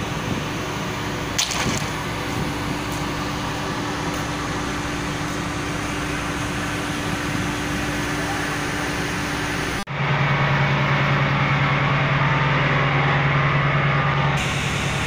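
Busy ferry quayside beside a docked passenger ship: a steady machinery hum under a continuous noisy background, with a brief sharp knock early on. About ten seconds in, it cuts to a louder, lower steady drone of machinery inside the ship's vehicle deck.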